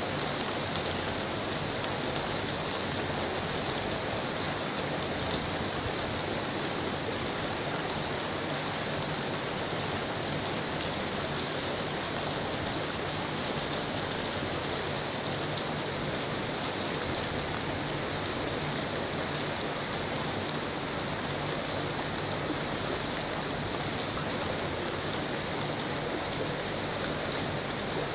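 Steady rain falling, an even hiss with no breaks, mixed with water running along a concrete drainage channel.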